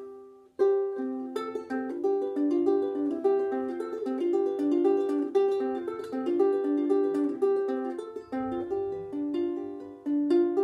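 Ukulele finger-picked as a repeating arpeggio of single plucked notes, several a second, starting about half a second in. It is a rocking-thumb picking pattern: the thumb alternates across the top two strings while the allocated fingers pluck the others.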